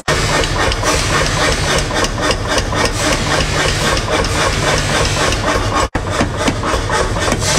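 Power hammer pounding a red-hot steel cleaver blank on its anvil, fast even blows several times a second over the steady hum of the machine's motor.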